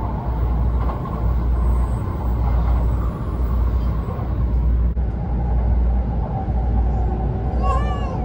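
Shinkansen train running, heard from inside the carriage: a steady heavy low rumble with rushing running noise as other shinkansen trains pass close alongside in the opposite direction.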